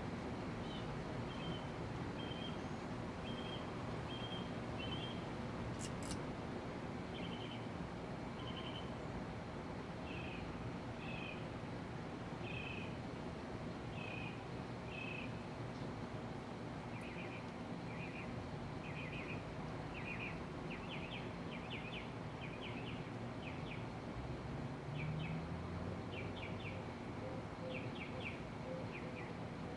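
Fasco 962CB six-blade ceiling fan running with a steady hum and whoosh, while short bird chirps repeat over it and grow quicker and more trilling in the second half.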